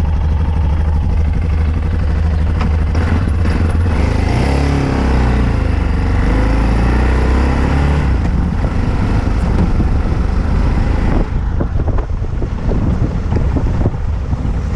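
Yamaha XT660Z Ténéré's single-cylinder engine running while the bike is ridden, its engine speed rising and falling around the middle, under heavy wind noise on the camera microphone.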